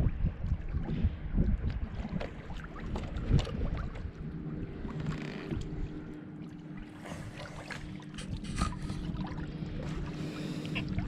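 Water splashing and lapping against a boat's hull as a swimmer strokes alongside, with short sharp splashes, wind buffeting the microphone, and a steady low hum.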